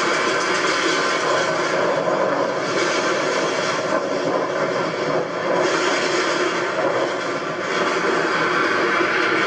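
Roller coaster train running along its track: a loud, steady rush of wheel and wind noise that dips briefly a few times.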